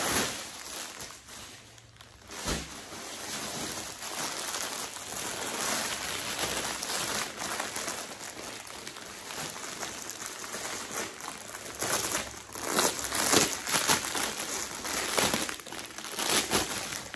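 Plastic packaging crinkling as a grey poly mailer and then a clear plastic garment bag are handled and opened by hand, with louder crackling bursts near the end.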